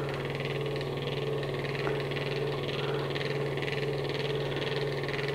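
Housnat candy floss maker running: its motor and spinning head give a steady hum with a faint regular pulse, as the heated head spins melted sugar into floss.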